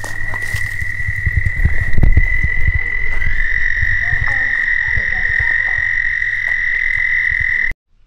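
Animal calls over the title cards: a steady high-pitched trill with low croaking pulses beneath it. It cuts off suddenly just before the end.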